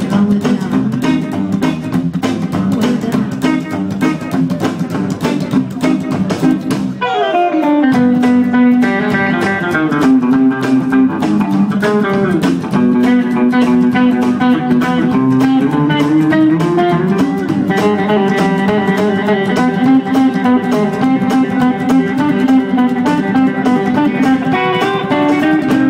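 Live rockabilly band playing, with upright double bass, drums and electric guitar. About seven seconds in the steady beat thins and a lead line slides down into long held, bending notes.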